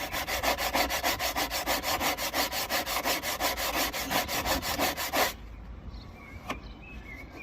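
Sandpaper on a hand sanding block scrubbed rapidly back and forth over old body filler and paint on a car body panel, about seven or eight strokes a second, feathering the rough area into the surrounding paintwork. The sanding stops about five seconds in.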